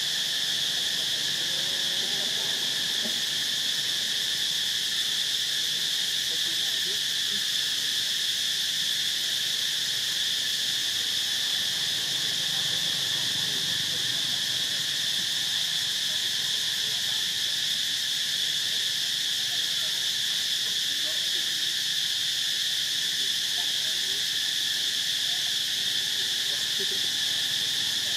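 Steady insect chorus: a continuous high-pitched drone that holds without a break.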